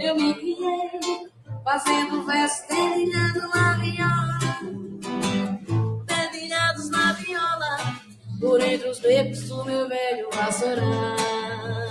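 Live forró song: a singer with an acoustic guitar.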